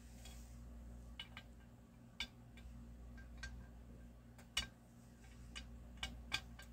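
Light clicks and taps of a 1/64-scale model shipping container being set onto a model semi's container trailer and pressed into place, about nine in all with the loudest a little past halfway, over a faint low hum.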